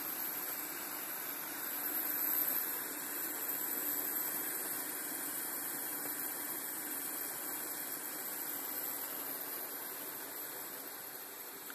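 Two-ring gas burner burning under the pot of a rakia still, a steady rushing noise with no break, easing a little near the end.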